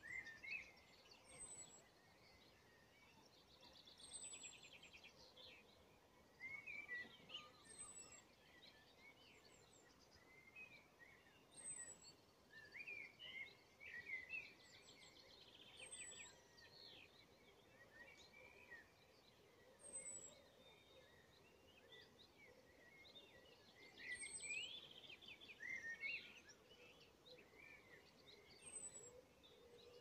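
Faint birdsong from several songbirds: a scatter of chirps and trills throughout, with a thin, high, falling note repeated every few seconds.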